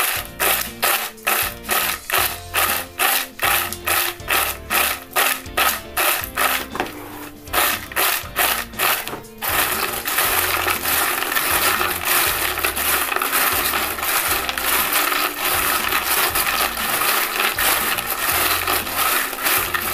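Crisp fried rice-flour chips rattling against each other and the bowl as a hand tosses them to coat them in spice. There are sharp, evenly paced tosses, two or three a second, for about the first half, then a continuous rustle. Background music plays underneath.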